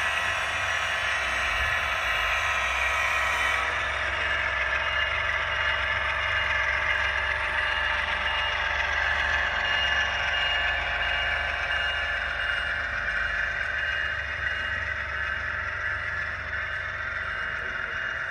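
HO-scale model train running past: a steady whirr and rattle of the locomotives' motors and the wheels rolling on the track, easing slightly near the end as the double-stack well cars go by.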